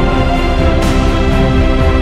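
Background music: sustained chords over a deep bass, with a percussion hit about a second in.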